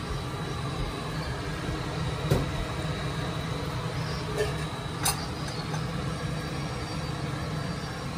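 A steady low rumble of background machinery, with a few light knocks of a serving ladle against a bowl as curry is spooned in, the sharpest about five seconds in.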